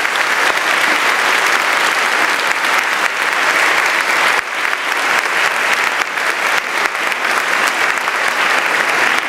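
An audience clapping steadily, a full round of applause, with a brief dip about halfway through.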